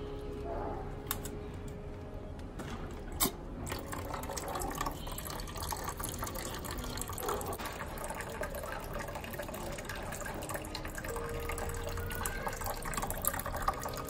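Water running and splashing during a nano aquarium water change, with a sharp knock about three seconds in.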